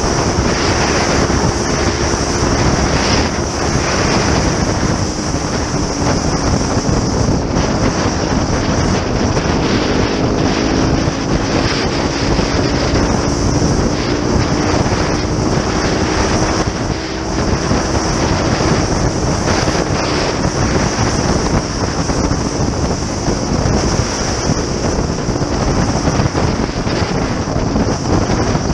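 Motorcycle riding at road speed, heard as heavy wind noise on a bike-mounted microphone. The engine's steady note runs underneath, drifting slightly lower and back up.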